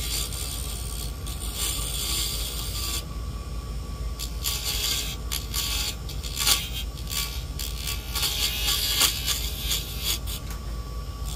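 Vevor mini woodworking lathe running with a steady low motor hum while a turning tool scrapes against the spinning wood in uneven bursts.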